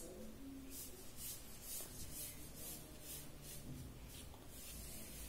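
Pen scratching across card-sheet paper, drawing pattern lines in a run of short strokes, about two a second, faint.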